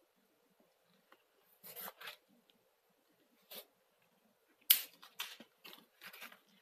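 Paper rustling and flapping as the cover and pages of a thin paperback picture book are opened and turned, in a few short scattered bursts; the loudest, a sharp flap of a page, comes a little under five seconds in.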